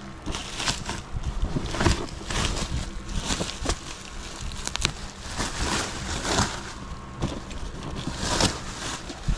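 Bubble wrap rustling and crinkling as it is pulled out of a cardboard box, with the box being handled, in a run of irregular rustles and short crackles.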